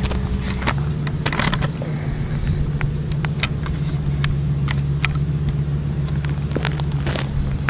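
Ford F-450 crane truck's engine running steadily, its note shifting just under a second in, with scattered sharp clicks over it.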